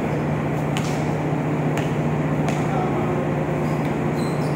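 Steady low hum of a ship's machinery in the enclosed vehicle deck, with a few sharp knocks from the basketball game on the steel deck.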